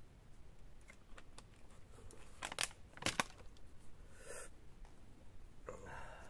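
Faint handling sounds of a plastic water bottle after a drink: a few sharp crackles and clicks as the bottle is squeezed and capped, then brief rustles of dry leaves as it is set down.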